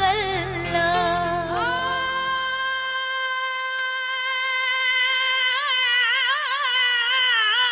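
Background music: a woman singing solo in a high voice. She holds one long steady note from about two seconds in, then breaks into quick ornamented turns near the end, while the low instrumental backing drops away after the first two or three seconds.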